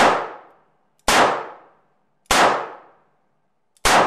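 Snub-nosed revolver firing four shots at about one-second intervals, each crack trailing off in the booth's echo.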